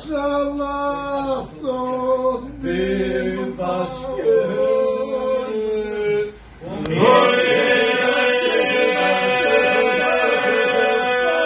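A group of men singing a Lab polyphonic folk song unaccompanied, in several voices with long held notes. After a brief break about six and a half seconds in, the voices come back together over a steady held drone.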